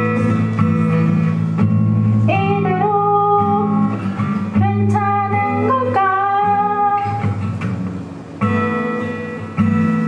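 Acoustic guitar strummed steadily, with a woman singing a melody over it from about two seconds in until about seven and a half seconds, then the guitar alone.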